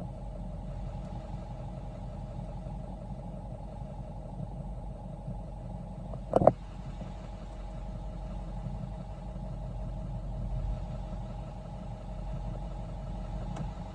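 7.3-litre diesel V8 truck engine idling steadily, with one short, sharp metallic clink about halfway through, louder than the engine.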